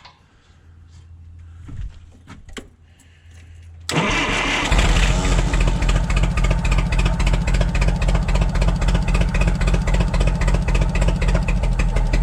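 A few faint knocks, then about four seconds in the forklift's propane-fuelled engine is cranked by the starter and catches within a second, running steadily after with a fast, even pulse. The engine has a cylinder missing that is being traced by pulling plug wires.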